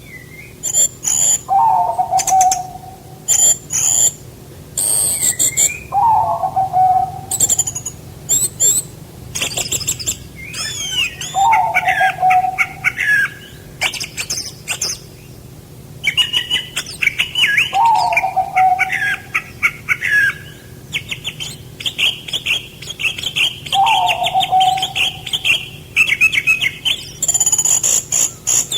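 Several songbirds singing and chirping with fast high trills, over a lower call that falls in pitch and repeats about every six seconds. From about halfway through, a bird keeps up a fast continuous chattering song.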